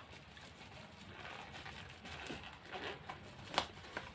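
Rustling and crinkling of a small parcel's packaging being handled and opened, with scattered light clicks and one sharper snap about three and a half seconds in.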